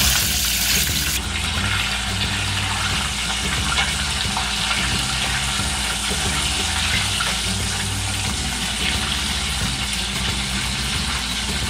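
Chicken drumsticks deep-frying in hot oil: a steady sizzling hiss as the pieces are moved around the pot with metal tongs.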